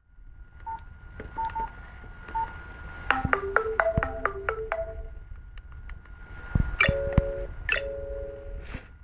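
Nokia 515 mobile phone playing an electronic ringtone through its small loudspeaker. A few isolated short beeps come first, then a quick run of short notes stepping in pitch about three seconds in, and two longer chord-like tones with sharp clicks near the end.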